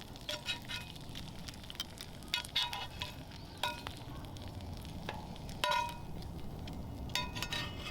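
Thick bacon and egg frying in a pan over a campfire, with a steady sizzle. Sharp clicks and short ringing clinks, about a dozen, come at uneven intervals.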